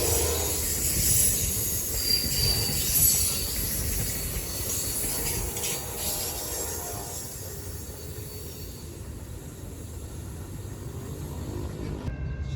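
Amtrak passenger train passing close by, its wheels rumbling and clattering on the rails with brief high wheel squeals; the tail of its horn dies away at the start. Near the end the sound cuts abruptly to a quieter rumble with a few steady tones.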